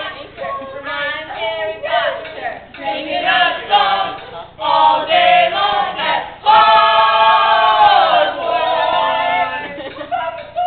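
Several voices singing together unaccompanied, a layered a cappella chant, with a louder held note from about six and a half seconds in that lasts about three seconds.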